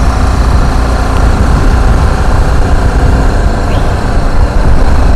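Strong wind buffeting the microphone of a rider on a moving BMW G310GS motorcycle, a loud steady rumble, with the bike's single-cylinder engine running beneath it.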